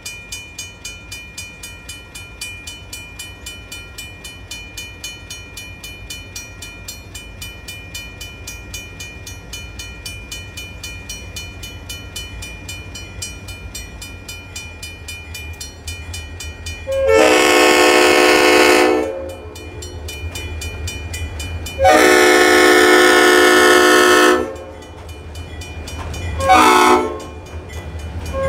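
Grade-crossing bell ringing rapidly, about three strikes a second, with the low rumble of an approaching diesel locomotive growing beneath it. A little past halfway the GP40's Leslie RS-5T five-chime horn sounds the grade-crossing signal: two long blasts, a short one, and a final long blast starting near the end.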